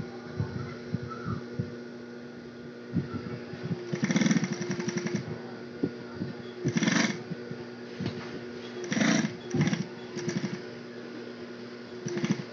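Industrial sewing machine stitching in several short bursts, the longest about a second, with pauses between them as the work is turned. A steady hum runs underneath.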